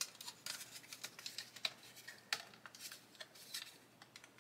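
Faint, irregular clicks and taps of plastic model-kit parts being handled and pressed together as a wing spar piece is offered up to its slot, the sharpest tap about two seconds in.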